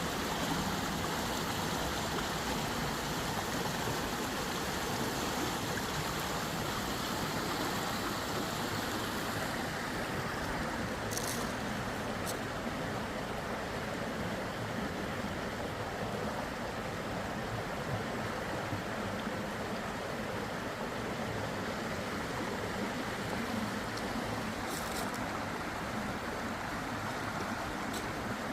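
Steady rush of running water, like a stream, with a few brief high ticks.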